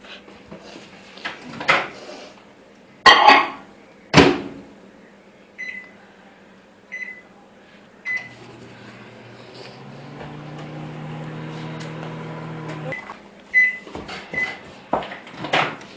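Microwave oven softening butter: two loud knocks about three and four seconds in, three short keypad beeps, then the oven runs with a steady low hum for about five seconds. It stops, and three more beeps follow.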